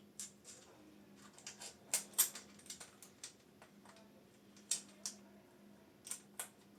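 Irregular light clicks and taps of metal parts being handled as new bicycle handlebars are fitted to the stem clamp, with a faint steady hum underneath.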